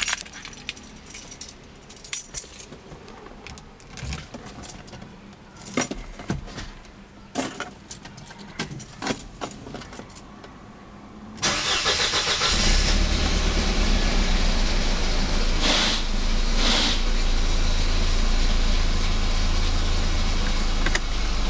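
A few scattered clicks and knocks, then about eleven seconds in the 1991 Mercedes-Benz 230 E's four-cylinder engine is cranked by its newly replaced starter and catches within about a second, settling into a steady cold idle.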